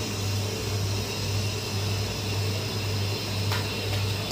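Steady low rumble and hiss of the burner under a large steaming karahi of masala, with one light click about three and a half seconds in.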